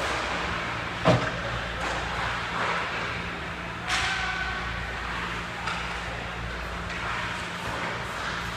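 Ice hockey play in an arena: sharp clacks of sticks and puck about a second in and again near four seconds, over a steady low hum of the rink.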